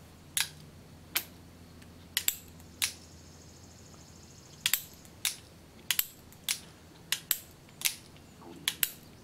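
Metallic clicks of an Uberti Walker percussion revolver's action as the hammer is cocked and the cylinder cycles by hand: about a dozen sharp clicks at irregular intervals, some in quick pairs. The action is being checked for free turning after cap fouling was cleared.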